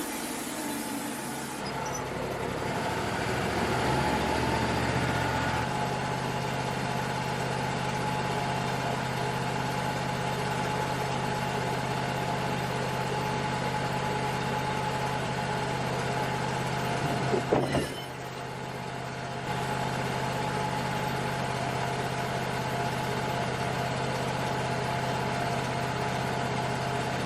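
Wood-Mizer LT35 portable band sawmill running steadily, its engine driving the band blade through a large log. The drone shifts up a couple of seconds in and again around six seconds, with a short louder clatter about two-thirds of the way through followed by a brief drop in level.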